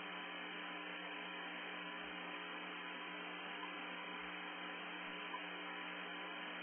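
Steady electrical hum over an even hiss, unchanging throughout, with no other sound.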